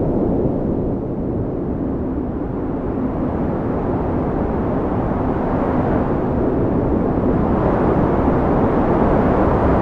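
Wind blowing in a steady low rush, dipping slightly about a second in and then building gradually louder toward the end.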